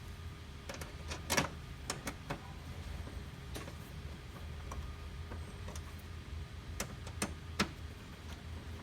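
Scattered clicks and knocks of the plastic casing of an HP LaserJet MFP 135a laser printer being handled as its front cover is unclipped and taken off, the sharpest knocks about a second and a half in and again near the end, over a steady low hum.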